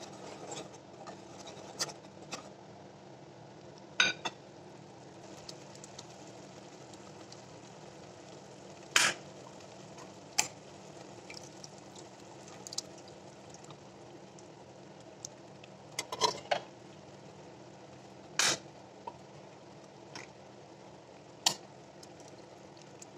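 Sharp metallic knocks and clicks every few seconds as a spoon and a can strike an aluminium cooking pot while a thick curry is stirred, over a faint steady background hum.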